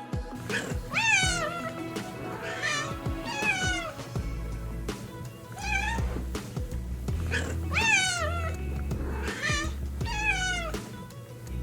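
Domestic cat meowing repeatedly, about eight meows, each rising and then falling in pitch, over background music with a steady bass line.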